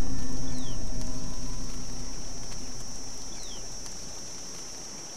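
Buzz of a locust swarm: a steady high insect drone over a low whirring rumble that fades away across the few seconds. A faint short falling chirp repeats about every three seconds.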